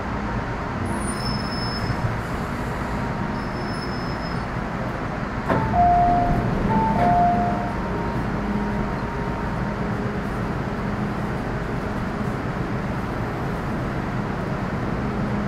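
Metro Cammell M-Train electric multiple unit heard from inside the car: a steady hum and rumble. About five and a half seconds in it gets louder for two seconds, with a few short electronic beeps at two pitches.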